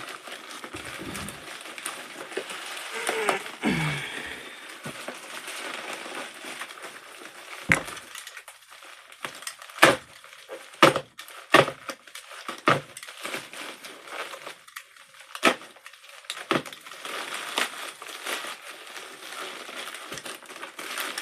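Packaging being handled and unwrapped: plastic and cardboard rustling and crinkling. About a third of the way in, a run of sharp clicks and snaps follows, spaced irregularly about a second apart.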